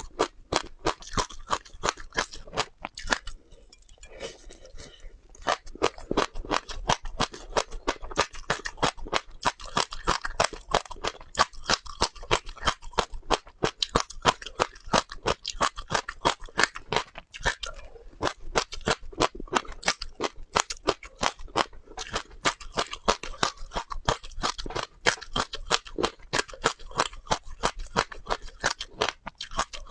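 Close-miked crunching of crisp seeds, a dense run of sharp cracks several times a second, with a short lull about four seconds in.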